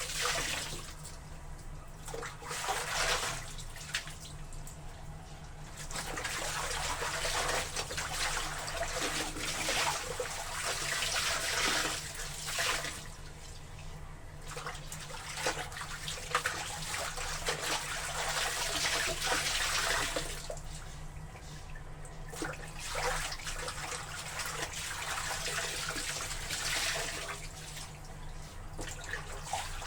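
Water sloshing and splashing as laundry is worked in a tub of water, in uneven swishes that come and go every second or so.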